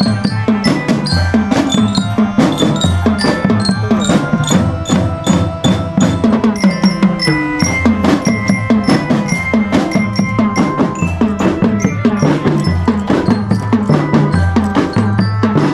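A children's marching drum band playing: snare and bass drums beat a steady rhythm under a ringing melody on bell lyres (marching glockenspiels).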